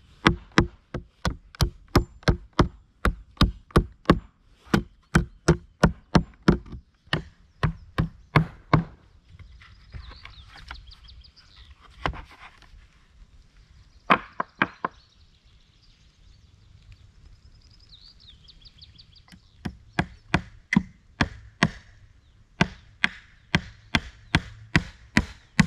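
Repeated sharp blows on wood, about two to three a second, in two runs separated by a pause of several seconds with only a few scattered strikes.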